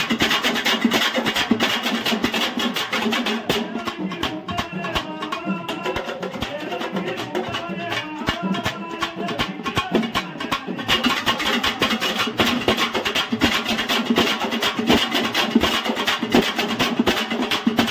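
Pambai drums and a thappattai frame drum beaten with sticks in a fast, dense rhythm, accompanying a man singing a Vinayagar (Ganesha) devotional song over a microphone. From about four seconds in to about eleven the drumming thins out and the singing comes forward, then the full drumming returns.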